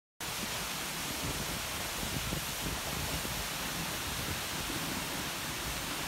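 A waterfall's steady rush of falling water, an even hiss-like roar that starts abruptly a moment in.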